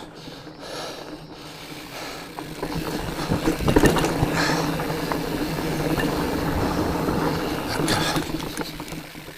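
Fat bike coasting fast over a rooty trail: the rear hub's freewheel ratchet buzzing, with tyre noise and knocks and rattles over bumps that grow louder about two seconds in.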